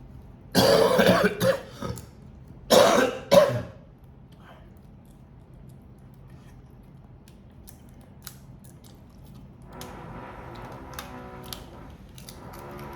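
A person coughing in two short bouts, about two seconds apart, near the start. Scattered faint clicks follow.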